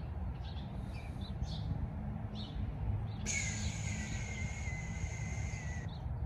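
Yard ambience: scattered short bird chirps over a steady low rumble. About three seconds in, a high steady buzz starts abruptly, lasts about two and a half seconds and cuts off suddenly.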